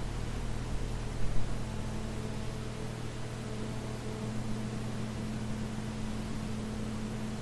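Steady hiss and low electrical hum of the recording's background noise, with a short louder sound just over a second in.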